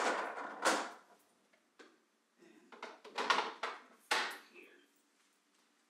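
Food containers and bins being handled and set down on refrigerator shelves: a few short clatters and scrapes with pauses between, the loudest just past three seconds in.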